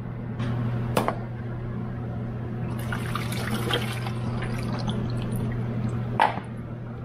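Water pouring out of a welded steel oil pan into a plastic drain pan as the pan is emptied after an overnight leak test. A knock comes about a second in and another near the end.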